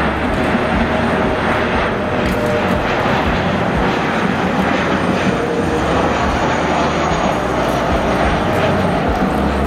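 Boeing 737 jet engines at approach power, a steady loud rush as the airliner flies in on final approach to land.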